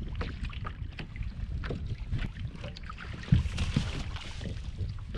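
Wind buffeting the microphone over water sounds around a small kayak, with irregular small knocks and one louder knock about three seconds in.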